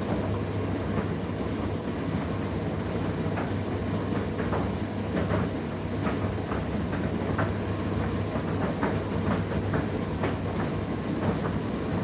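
Indesit IDC8T3 condenser tumble dryer running mid-cycle: a steady low hum from the motor and drum, with irregular light taps and clicks as the load tumbles in the drum.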